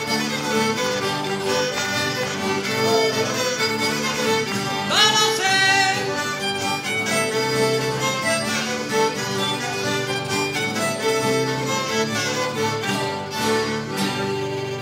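Live folk dance band playing an instrumental Breton dance tune, a fiddle carrying the melody over a steady accompaniment.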